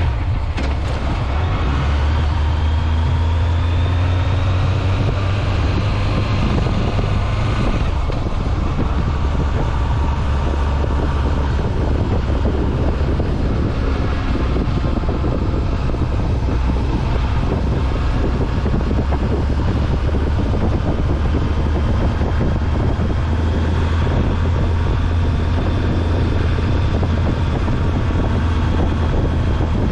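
Honda Nighthawk 750's inline-four engine running under way, with wind rushing over the microphone. The engine note rises for the first few seconds as the bike accelerates, then holds steady at cruising speed.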